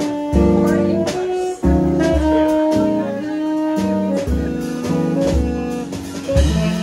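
Small jazz band playing live: tenor saxophone carrying a melody of held notes over electric archtop guitar, double bass, and drums with cymbals.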